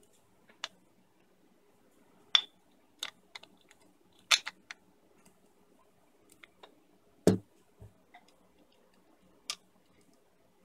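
Handling noise: scattered sharp clicks and taps of a digital caliper being slid and fitted into a 3D-printed plastic jig, with a duller knock about seven seconds in.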